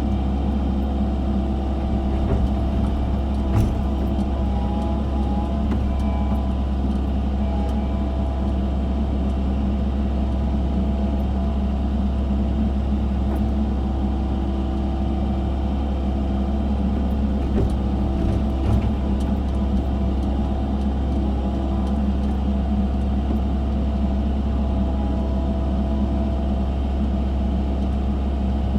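Excavator engine running steadily at an even pitch, with a couple of brief knocks, one a few seconds in and one past the middle.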